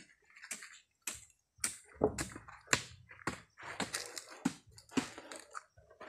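Footsteps on dry leaf litter and dirt, short crackling steps about two a second.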